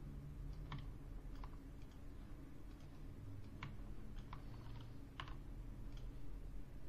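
About six faint, irregularly spaced clicks from a computer's input devices as the software is worked, over a low steady hum.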